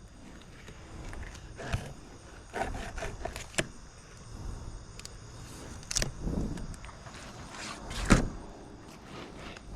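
Knocks and scraping as a Dexter fillet knife cuts along a triggerfish's back, with the loudest knock about eight seconds in.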